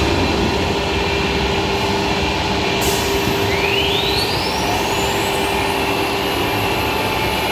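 A CNC machining centre running with a steady mechanical hum and noise. A high hiss starts just under three seconds in, and about a second later a whine rises steadily in pitch for a couple of seconds.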